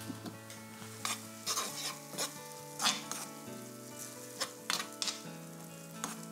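Metal spoon stirring black beans and tomato sauce around a non-stick frying pan, with a dozen or so short scrapes and clinks against the pan as the mixture sizzles.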